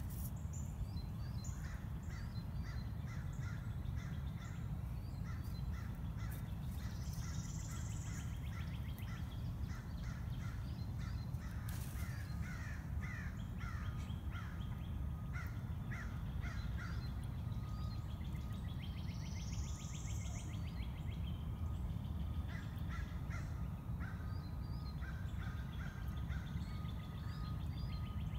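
Birds calling in the background in repeated series of short calls, over a steady low rumble.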